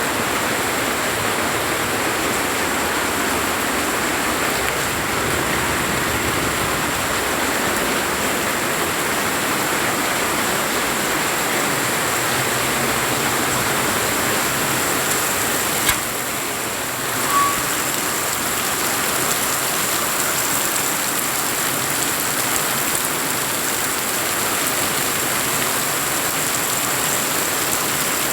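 Steady heavy rain falling, a dense even hiss, with a brief click and a short dip in the noise a little past halfway.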